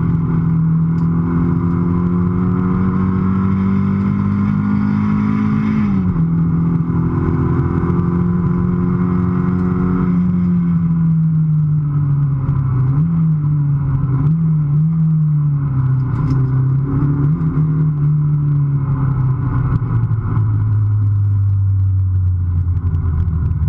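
Toyota MR2's normally aspirated engine heard from inside the car under hard acceleration: the engine note climbs, drops sharply at an upshift about six seconds in, and climbs again. It then falls away as the driver lifts off, with a couple of quick throttle blips, and keeps sinking steadily near the end as the car slows.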